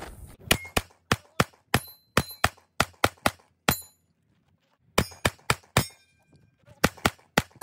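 Taurus G3C compact pistol fired rapidly, a long string of shots about three a second with a short pause about halfway and another near the end. A few shots are followed by a brief metallic ring.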